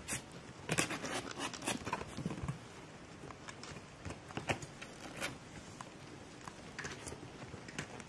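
Irregular light scratching, rustling and sharp little clicks. They are busiest from about one to two and a half seconds in, with a few single clicks later.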